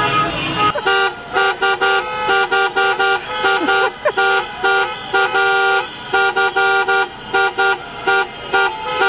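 Car horns honking a repeating rhythm of short blasts, several horns sounding together, starting about a second in.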